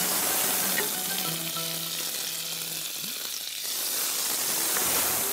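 Butter sizzling in a hot frying pan, a steady hiss.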